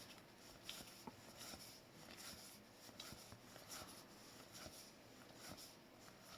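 Near silence with faint, scattered light ticks and rustles of hockey trading cards being handled and laid down.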